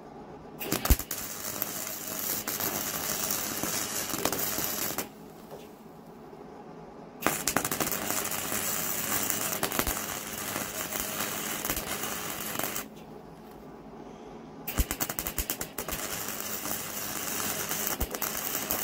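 Wire-feed (MIG) welder's arc crackling steadily in three runs of about four to five seconds each, with short pauses between, as a weld is laid along a steel handle.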